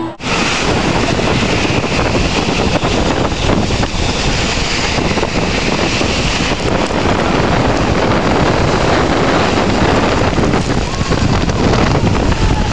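Loud, steady rush of wind buffeting the microphone, mixed with the hiss of a snow tube sliding fast down a packed-snow slope, filmed from on the tube.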